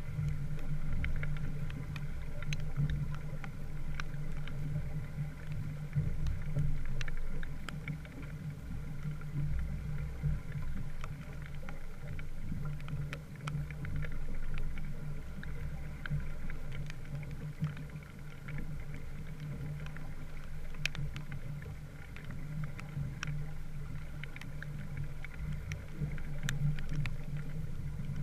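Small wooden sailboat under way: water rushing along the hull, with a steady low hum and scattered light ticks throughout.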